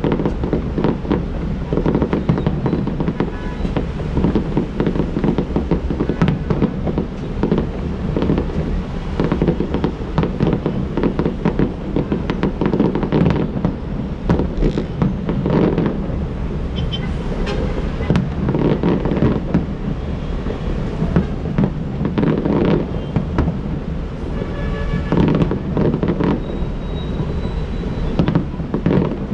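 Fireworks display: aerial shells bursting in rapid, continuous succession, a dense run of booms and crackles with no pause.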